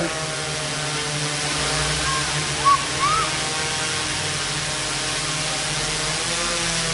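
Large quadcopter hovering: four Emax MT3515 brushless motors turning 15-inch propellers, giving a steady drone of several held tones over an even hiss of rotor wash.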